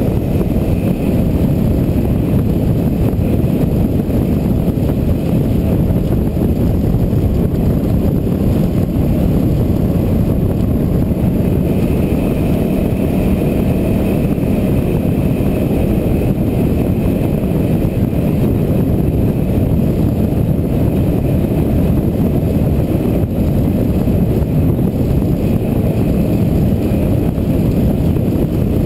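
Steady rumble of a motorcycle under way: wind noise on the microphone over the engine of a Yamaha WR250R, a 250 cc single-cylinder dual-sport bike.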